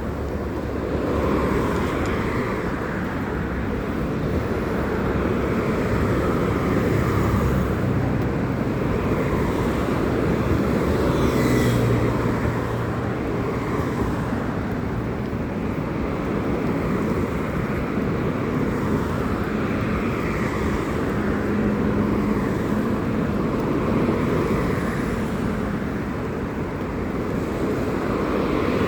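Steady riding noise: tyre rumble on a bumpy path and wind across the microphone, with a brief sharp click near the middle.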